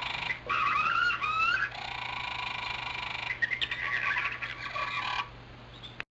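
Creature call sound effect used for an animated dinosaur: a string of high, bird-like chirping and squawking calls that glide up and down in pitch over a faint low hum. It ends abruptly near the end.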